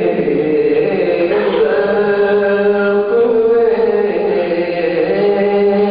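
Male voice singing a Shia mourning elegy (soz/pursa) in long, drawn-out held notes, moving to a new note about four seconds in.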